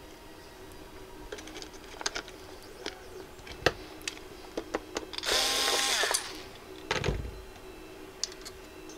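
Handling noises as the main circuit board of a Technics 1210 turntable is freed and lifted out of the chassis: scattered light clicks, a harsh burst of about a second some five seconds in, and a low thump about seven seconds in.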